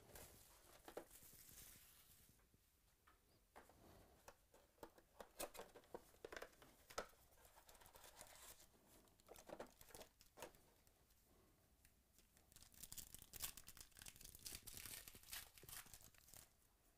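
Faint handling of a trading-card box and packs: scattered light taps and rustles, then for the last few seconds the crinkling and tearing of a Panini Certified basketball card pack's foil wrapper being ripped open.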